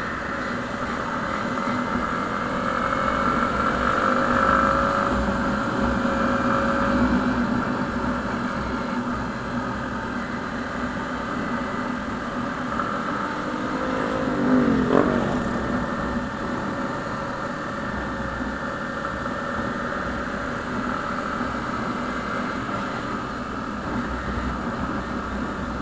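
Motorcycle engine running under way, its pitch rising and falling with the throttle, with a sharp dip and rise in revs about fifteen seconds in. Wind rushes over the microphone underneath.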